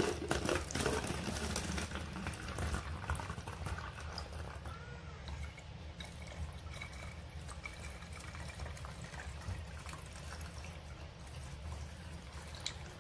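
Liquid pouring through a plastic funnel into a plastic bottle: water from a glass measuring jug splashes in loudest at the start, then rubbing alcohol trickles in steadily from its plastic jug.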